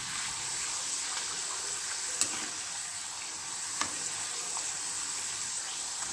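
Thin potato slices deep-frying in hot oil in a kadai, a steady sizzle. Two sharp clicks stand out, about two and four seconds in.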